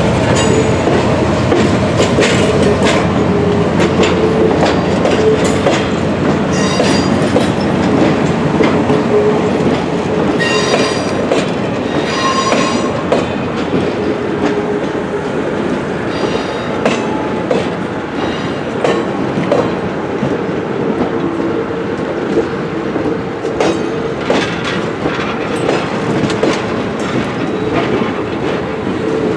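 Passenger train of stainless-steel cars rolling past close by, steel wheels clacking over the rail joints in a steady rumble. Brief high wheel squeals come through about a quarter of the way in and again near the middle.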